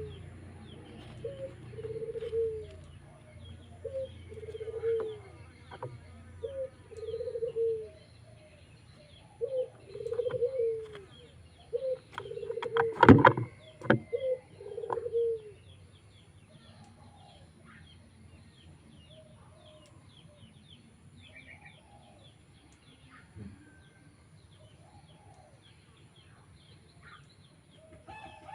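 Pigeon cooing: a run of short low coos repeated about every second for the first half, with a sharp knock a little before the coos stop. Fainter scattered calls and chirps follow.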